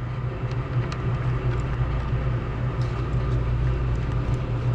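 Steady low hum of running machinery, with a few faint ticks.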